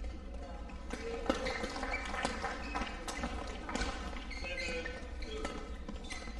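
Badminton rally: rackets striking the shuttlecock back and forth, sharp hits coming at irregular intervals, over a steady low hum.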